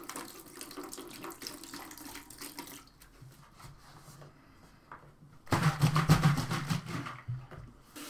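Liquid poured from a plastic bottle splashes into a plastic bucket for about three seconds. Then come quieter knocks of plastic buckets and a lid being handled, and past the middle a louder stretch of water splashing and plastic clattering lasting about two seconds.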